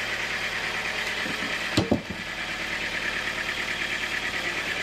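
A band sawmill runs steadily, not cutting. About two seconds in come two heavy thuds close together as a large hardwood log is rolled onto the saw carriage.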